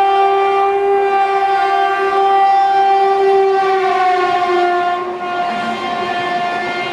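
Indian Railways locomotive horn sounded in one long unbroken blast as the train approaches and passes. Its pitch drops slightly about four seconds in as the locomotive goes by.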